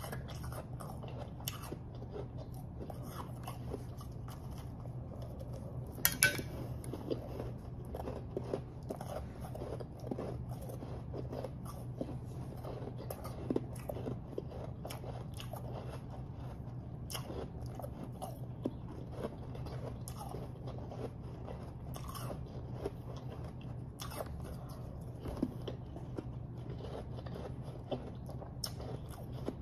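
Close-miked chewing and crunching of refrozen powdery snow ice in the mouth, a steady run of crisp crunches with a louder one about six seconds in. A steady low hum lies underneath.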